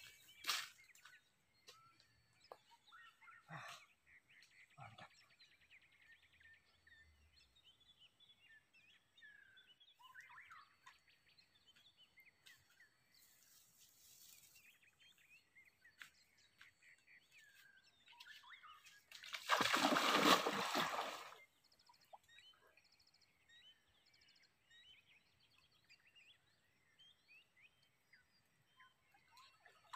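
Scattered short bird calls, with a loud rush of noise lasting about two seconds about two-thirds of the way through.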